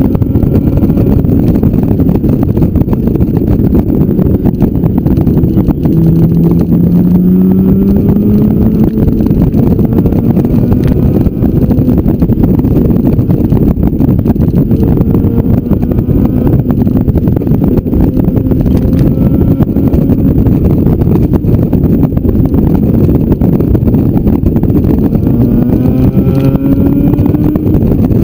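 Motorcycle engine running at road speed under heavy wind rush on the microphone. The engine note climbs as the bike accelerates, about six seconds in and again near the end.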